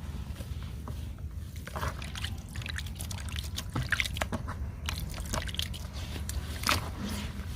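Water trickling and dripping onto crumbly sand-cement and sawdust, with many small crackles and ticks starting about two seconds in over a steady low hum.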